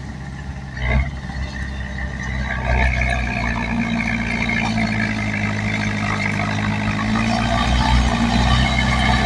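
Bulldozer's diesel engine running under load, its pitch rising about three seconds in and holding there, with a sharp knock about a second in.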